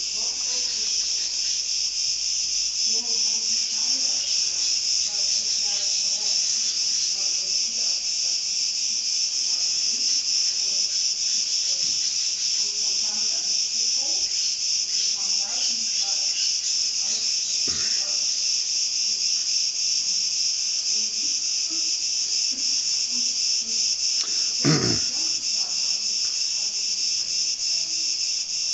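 Steady, high-pitched insect chorus, with a single short knock about 25 seconds in.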